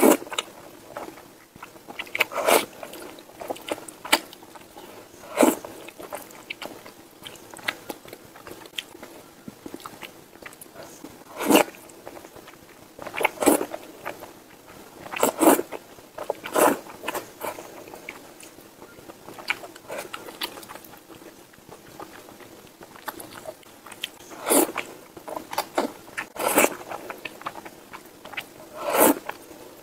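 A person slurping and chewing thick noodles in black bean sauce (zhajiangmian), close to the microphone. Wet slurps come every one to three seconds, with chewing between them.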